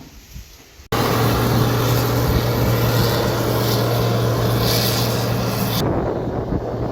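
A large diesel engine running steadily under a loud rush of wind and machine noise. It cuts in abruptly about a second in and eases off near the end.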